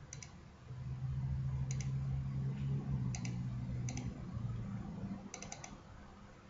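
Computer mouse button clicks, each a quick press-and-release pair, about five times with a run of three near the end. A low steady hum sits underneath from about a second in until near the end.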